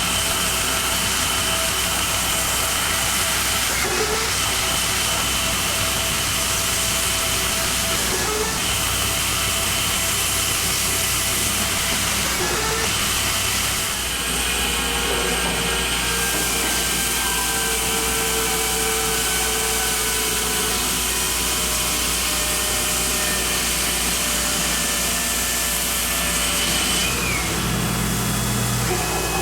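Tormach Slant-Pro CNC lathe turning 1045 cold-rolled steel: a steady high spindle whine over the hiss of the cut, with brief breaks every few seconds.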